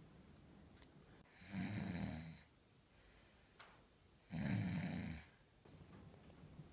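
A boy snoring: two long snores, each about a second, some three seconds apart.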